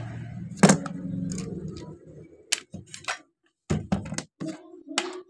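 A steady low hum that cuts off about two seconds in, followed by a run of sharp, separate clicks and knocks of a handheld marble cutter and its metal parts being handled while the machine is opened up.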